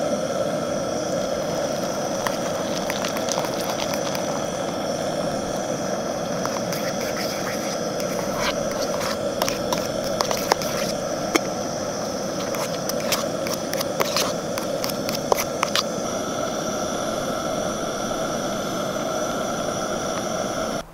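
Gas camping stove burner hissing steadily, with clicks and scrapes of a utensil stirring instant mash in an aluminium pot from about two seconds in until about sixteen seconds in.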